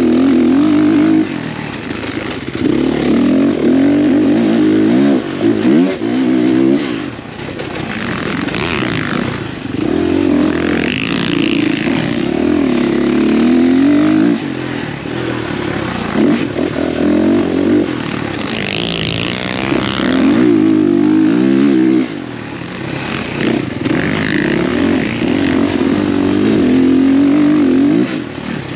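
Dirt bike engine at race pace, heard from an on-board camera: the engine note rises and falls as the throttle is worked, and several times it drops back sharply when the rider rolls off before pulling hard again. A hiss of wind and sand comes and goes over the engine.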